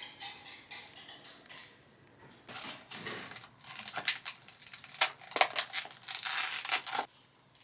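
Plastic packaging being crinkled and torn open in irregular bursts, with a few sharp snaps, as a swim cap is unwrapped.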